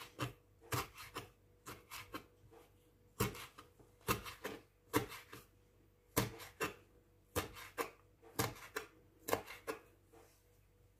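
Kitchen knife chopping banana peel on a wooden cutting board: irregular knocks of the blade on the board, often in quick groups of two or three, stopping near the end.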